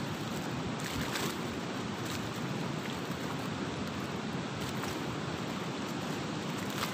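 Steady rushing noise of a fast-flowing river, mixed with wind blowing on the microphone.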